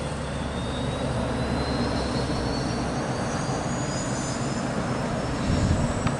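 AgustaWestland AW139 helicopter running on the ground: twin turboshaft engines and turning main rotor, with a high turbine whine that slowly rises in pitch.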